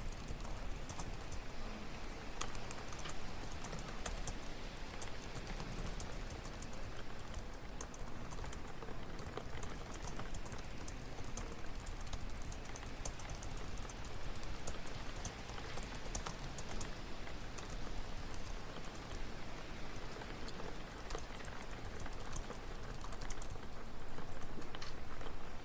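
Library ambience: a steady room background dotted with scattered light clicks of computer keyboard typing.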